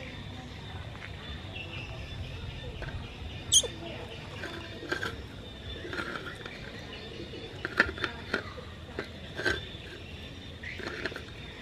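A few short, high chirps and squeaks over a steady low hum, the sharpest and loudest about three and a half seconds in.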